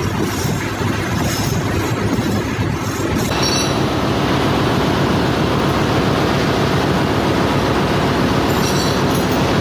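Loud, steady engine-room machinery noise: a dense mechanical rumble with a low hum underneath, shifting slightly about three seconds in.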